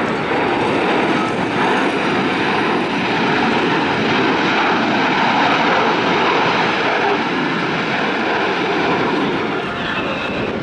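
Navy F/A-18 Hornet jet engines passing low overhead, a loud, steady rushing jet noise that eases slightly near the end.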